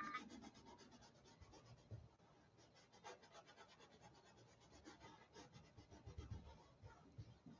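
Faint, quick scratching of a paintbrush working acrylic paint on a canvas, many small strokes a second, with a few soft low thuds around six seconds in.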